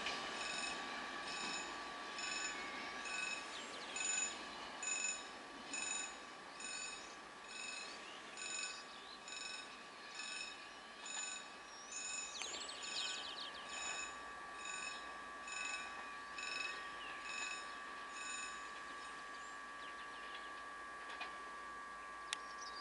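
Electronic warning bell ringing at an even pace, about once a second, over a steady high tone.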